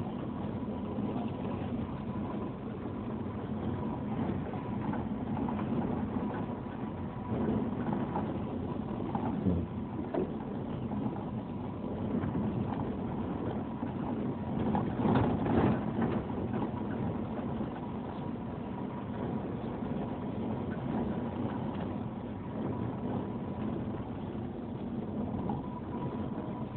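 Vehicle driving along a dirt road: steady engine and road rumble, with a thin steady whine above it and a louder stretch a little past halfway.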